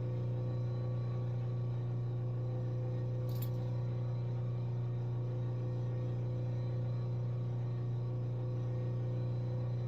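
Steady low electrical hum throughout, with one brief faint click about three and a half seconds in.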